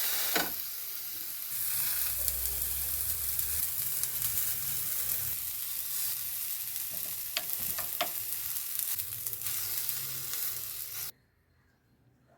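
Indian borage (doddapatre) leaves sizzling in a hot pan on the stove as they wilt, with a few light clicks of a utensil against the pan. The sizzling cuts off abruptly near the end.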